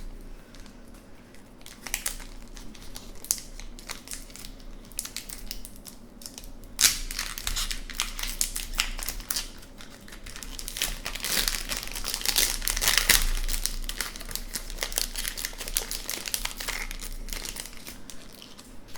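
Wrapper of a hockey card pack being torn open and crinkled: irregular crackling and rustling that grows busier about seven seconds in and eases off near the end.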